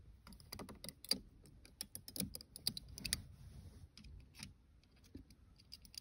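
Light, irregular clicks and scrapes of a screwdriver tip working inside the plastic housing of a Toyota Tundra seatbelt buckle, prying at the small spring of the buckle's seatbelt switch.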